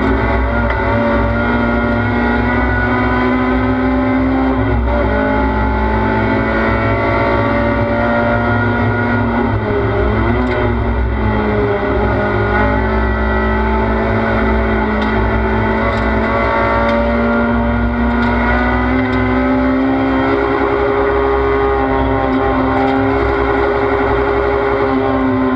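Race car's engine at high revs heard from inside the cockpit, loud and continuous, its pitch dipping and climbing again several times as the car brakes and accelerates through the corners, over a steady low road rumble.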